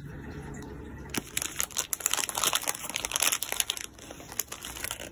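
Plastic biscuit wrapper crinkling as the packet is handled and set down on the table. It starts about a second in, runs for about three seconds, then a few lighter crackles follow.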